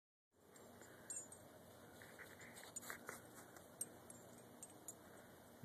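Near silence: a faint steady hiss with a few brief, light, high-pitched metallic clinks.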